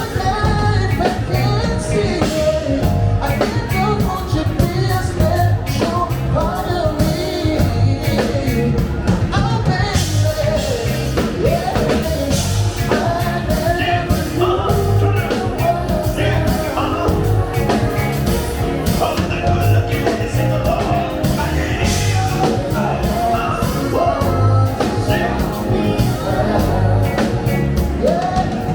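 A live funk and soul show band playing a song, with a steady drum-kit beat under a lead melody line.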